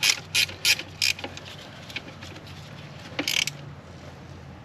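A 13 mm ratcheting wrench clicking as it tightens a nut onto the alternator's charge-wire stud, about three clicks a second for the first second, then stopping. A short rattle of clicks follows about three seconds in.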